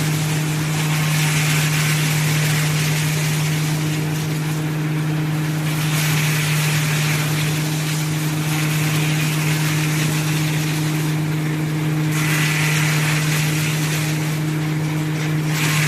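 Straw crusher and baler running: a steady low machine hum under a rushing, hissing noise that drops away briefly three times.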